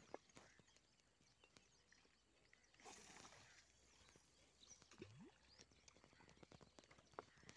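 Near silence: faint outdoor ambience with a few scattered faint ticks.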